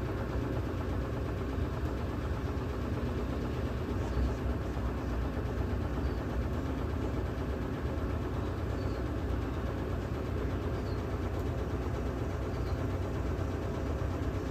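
Electrolux Ecologic 12 kg top-load washing machine running its intermediate spin: a steady rumble and hum with the cabinet vibrating, and faint short squeaks every couple of seconds.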